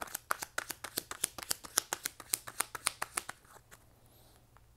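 Tarot cards being shuffled by hand: a quick run of crisp card clicks, about nine a second, that stops about three and a half seconds in.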